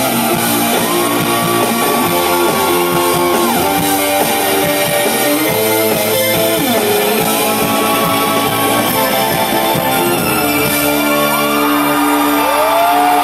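Rock band playing live and loud, with electric guitars to the fore and long held notes gliding in and out over them three times.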